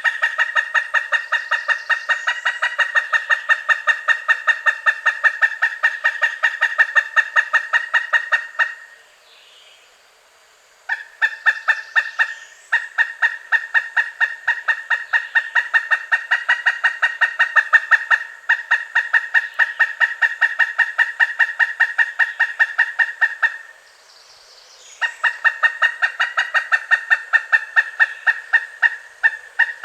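Pileated woodpecker calling: long, rapid, even series of loud 'kuk-kuk-kuk' notes, in three runs broken by two short pauses.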